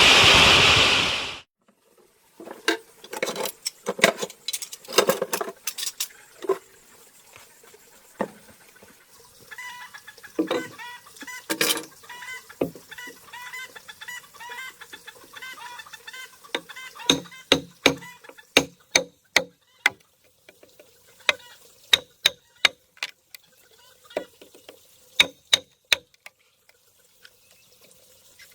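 Chickens clucking, with sharp knocks and taps scattered throughout that come thickest in the second half. A loud rasping, rubbing noise cuts off about a second in.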